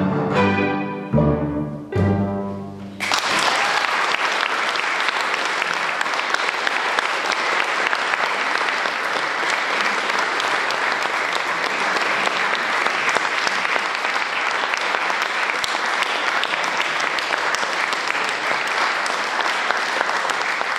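The closing chords of a piece for double bass and string quartet: three short, heavy bowed chords that end about three seconds in. Then sustained applause, steady to the end.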